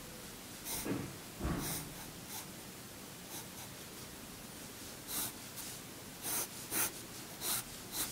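Graphite pencil sketching on paper: short, separate scratchy strokes, coming closer together in the second half.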